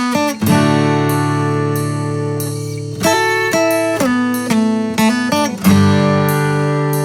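Background music on acoustic guitar: long ringing chords, with runs of quicker picked notes between them.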